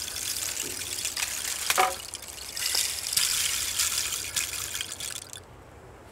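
A rushing, crackly hiss that swells and fades in waves, then cuts off suddenly about five and a half seconds in.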